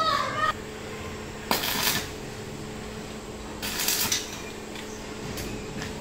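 Stick (arc) welding: the electrode crackles and hisses in two short bursts of about half a second each, tack-welding a rim lock's case to a steel gate.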